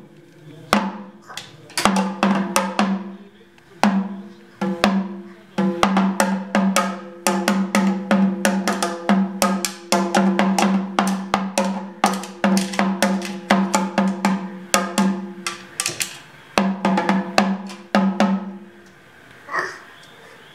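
Small toy drum struck by a toddler, with uneven bursts of quick hits, several a second, and the drumhead ringing between hits. The hitting stops shortly before the end.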